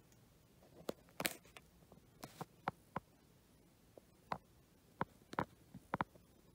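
Faint handling noise: a brief rustle about a second in, then a scattering of light clicks and taps as the sneakers and camera are moved about.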